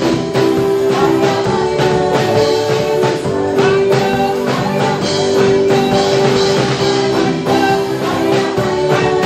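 Live gospel praise band with keyboard and drums playing while a group of singers sings a worship chorus.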